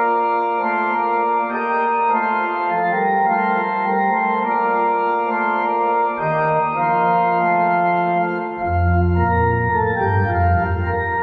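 Organ music: slow, held chords, with a low bass note coming in about six seconds in and a deeper one a couple of seconds later.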